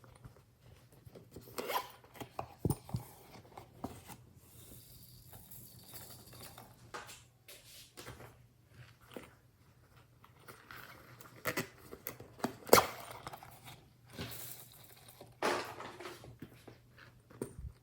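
Glossy slime being worked by hand, squished and pulled, giving irregular sticky pops and clicks with short squelching bursts between them. The sharpest pop comes about two-thirds of the way through.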